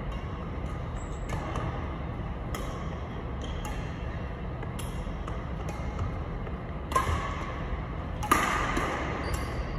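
Badminton rackets striking a shuttlecock in a rally: sharp, echoing hits every second or two, the two loudest near the end, over a steady low background hum.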